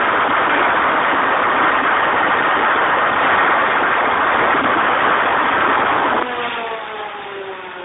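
100 kVA Deutz diesel generator set running loud and steady, then shut off about six seconds in, the engine winding down with a falling pitch.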